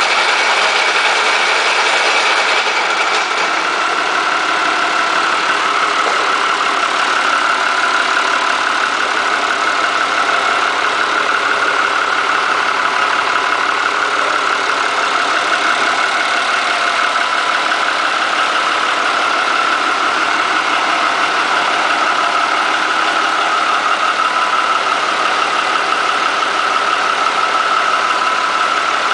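International Harvester turbocharged diesel engine, out of its tractor, idling steadily, with a steady high whine over the engine note.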